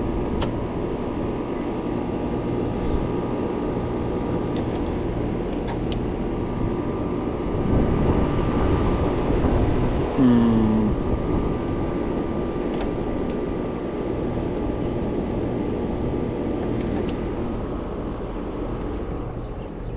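Heat pump outdoor unit running steadily in heating mode, compressor and condenser fan humming, working normally and producing heat. It swells louder for a few seconds about eight seconds in, and a short falling tone sounds about ten seconds in.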